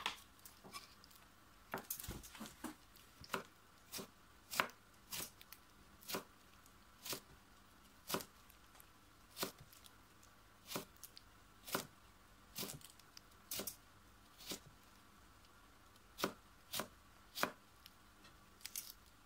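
Kitchen knife dicing carrot into small cubes on a cutting board: sharp knocks of the blade striking the board at an uneven pace, roughly one or two a second.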